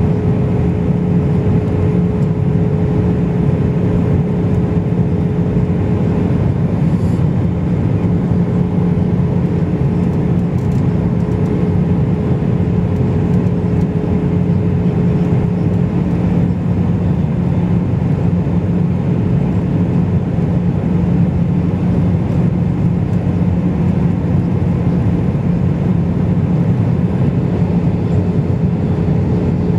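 Steady cabin noise of an Airbus airliner in flight, heard from a window seat over the wing: an even rumble of the engines and rushing air, with a low steady drone running through it.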